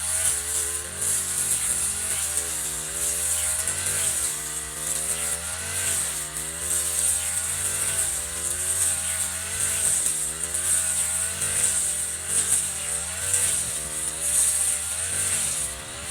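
Echo RM435 brush cutter's two-stroke engine running, its pitch rising and falling over and over every second or two, with a high whine over it.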